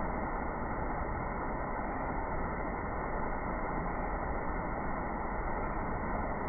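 Small waterfall running low, a steady rush of falling water.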